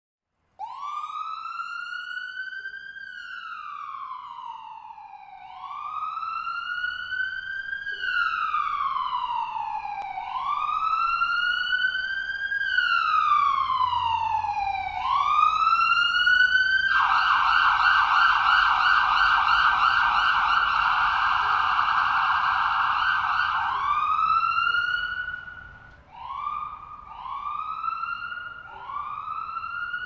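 Ambulance siren in a slow wail, rising and falling about every five seconds and growing louder. About halfway through it switches to a fast yelp for some seven seconds, then goes back to shorter wail sweeps.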